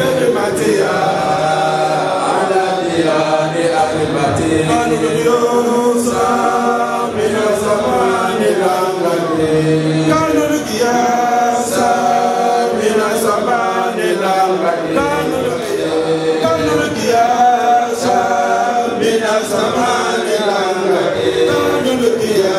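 Several voices chanting together without instruments, in long held and gliding notes.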